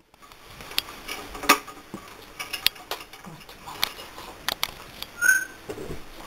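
African grey parrot on a wooden branch perch: scattered sharp clicks and taps, and one short high chirp about five seconds in.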